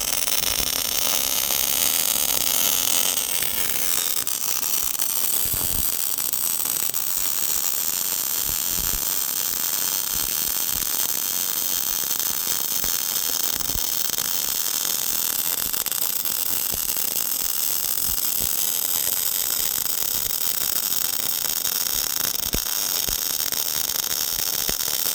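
Robotic MIG welding arc: a steady, continuous hiss and crackle, with a few faint low thumps scattered through it.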